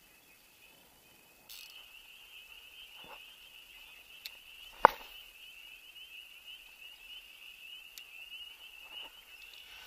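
A steady high-pitched frog chorus, coming in about one and a half seconds in, with a few sharp knocks over it. The loudest knock falls about halfway.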